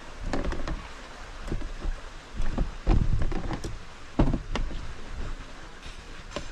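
Irregular knocks, taps and handling noise from hands working epoxy and braid onto a cracked fishing rod, over a low rumble; the loudest knocks come about three and four seconds in.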